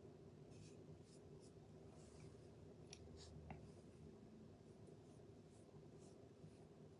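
Near silence: faint, short paintbrush strokes of chalk paint on a wooden window frame, over a low steady room hum.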